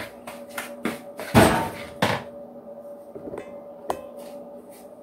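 Spoon knocking and scraping against a plastic mixing bowl while stirring egg and soft margarine, in a run of irregular taps with one heavier thump about a second and a half in.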